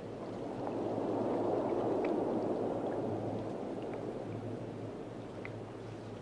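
Muffled water rushing and gurgling, swelling over the first couple of seconds and slowly fading, with a low steady hum and a few faint ticks.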